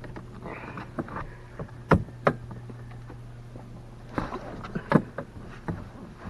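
Plastic interior car trim panel being pried off, with sharp clicks and knocks as its retaining clips pop loose and the panel is handled. A low steady hum runs under the first half and then stops.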